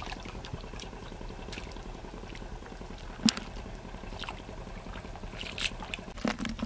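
Wet mud and water sounds: a few short squelches and splashes over a steady background hiss, the sharpest about three seconds in.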